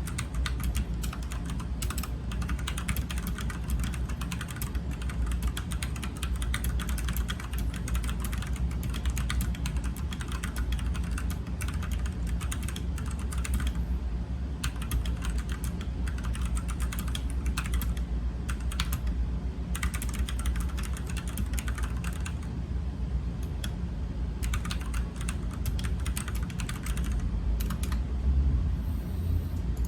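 Typing on an Ajazz K680T 68-key mechanical keyboard with red linear switches (Chinese clones of Gateron reds): a fast, continuous patter of keystrokes that thins out briefly a couple of times.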